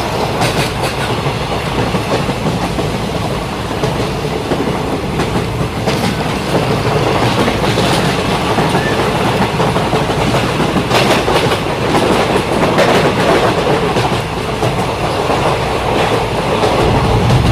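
Toy trains running on a plastic track layout: a steady noisy clatter from motors and wheels, with a few sharp clicks here and there.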